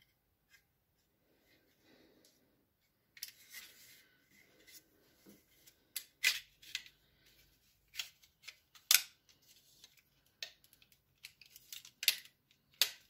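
Plastic rubbing and clicking from a car's third brake light being pried apart, its clear housing unclipping from the red lens: some scraping, then a run of sharp snaps a second or so apart through the second half.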